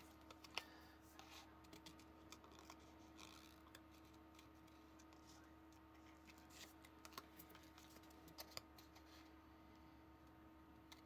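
Scissors snipping through the thin cardboard of a snack box: faint, irregular snips and small clicks over a steady low hum.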